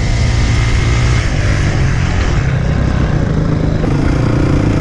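Honda CRF250 dirt bike's single-cylinder four-stroke engine running steadily as the bike is ridden across rough grass, heard from the rider's helmet camera; the engine note changes about four seconds in.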